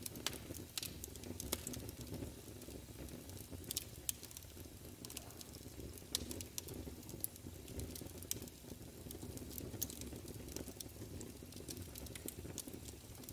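Steady low rumbling noise with many scattered sharp crackles and clicks.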